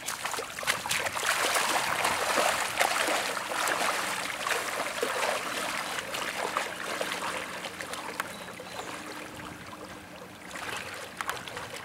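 Lake water splashing and swishing around the legs of people wading in, loudest in the first few seconds and easing off as they move slowly into deeper water.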